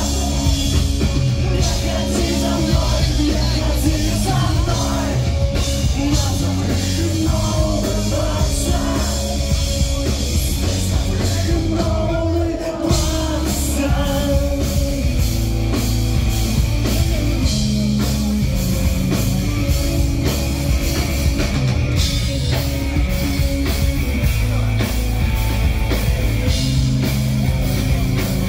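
Live pop-punk band playing loud, with distorted electric guitars, bass and a drum kit, recorded from the crowd in a club. The playing breaks off briefly near the middle, then resumes.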